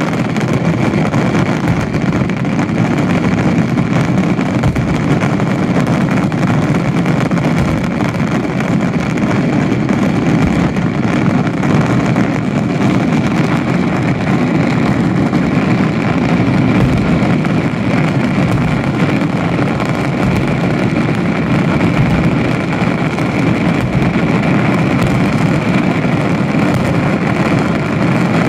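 Daytime fireworks barrage firing without pause: rapid reports and crackling bursts merge into a steady, dense roar.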